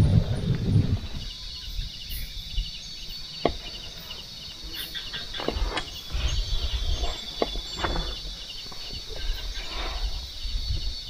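Night insect chorus of crickets trilling steadily, one high and even, another pulsing just below it. Scattered sharp clicks and soft knocks sound over it, with a low rumble in the first second.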